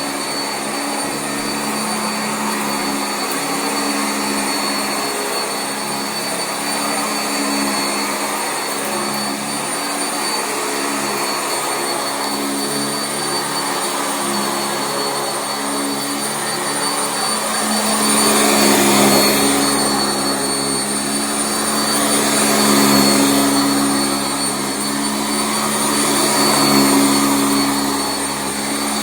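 Sanitaire SC679J commercial upright vacuum running on carpet: a steady motor sound with a high whine. In the second half it swells and eases about every four seconds.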